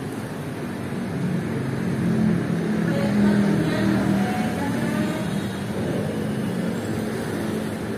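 A motor vehicle's engine running, growing louder over the first three seconds and then easing off.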